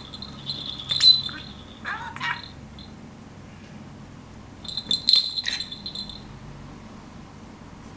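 A small bell on a budgerigar's hanging toy rings twice, about four seconds apart, as the bird pecks and knocks it, each ring fading within about a second. Short chirps from the budgerigar come around the rings.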